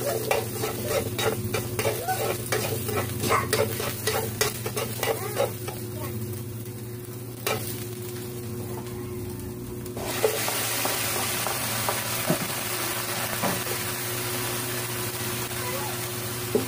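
Onion and garlic frying in oil in a nonstick pan, with a spatula clicking and scraping as it stirs them. About ten seconds in the sizzle jumps to a louder, steady hiss as chicken pieces go into the hot pan.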